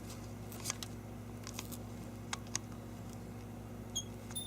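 Steady low electrical hum in a small room, with a few faint scattered clicks and a brief high tone near the end.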